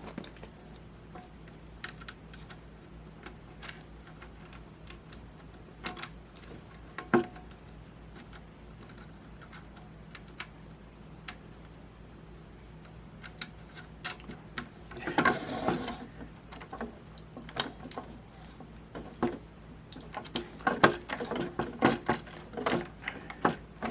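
Scattered clicks, taps and knocks of hands working a replacement roller and its bolt onto the rail of a MaxiClimber climbing machine. There is a denser burst of handling noise about fifteen seconds in, and another near the end.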